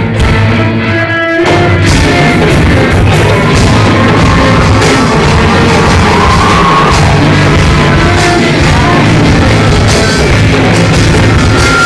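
Live rock fusion band playing loudly: electric guitar and bass guitar with a Sri Lankan hand drum in Kandyan drumming style. After a thinner opening, the full band comes back in hard about a second and a half in.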